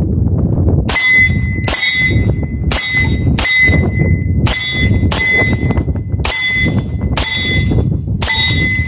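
Beretta M9A3 9mm pistol firing nine shots in steady slow fire, each shot followed by a short metallic ring. Wind rumbles on the microphone throughout.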